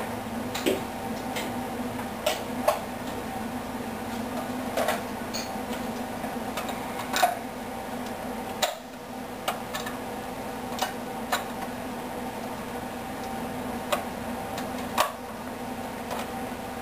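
Dishes and utensils clinking, about a dozen sharp separate clinks, over a steady electric hum.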